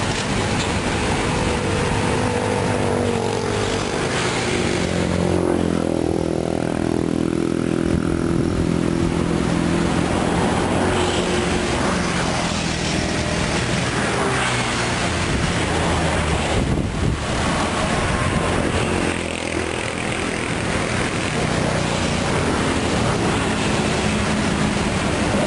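Diesel engine of a loaded Mitsubishi Fuso Canter light dump truck running as it manoeuvres, its pitch shifting with engine speed about five to eight seconds in, then settling to a steady run.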